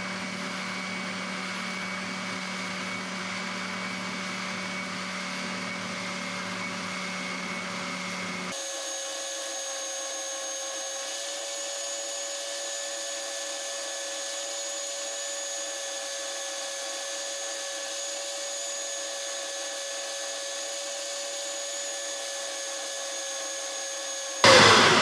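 Oscillating spindle sander running steadily with a motor whine while a small wooden block is sanded into a ramp. About a third of the way in the tone changes abruptly and the low hum drops away, and a louder burst of noise comes in near the end.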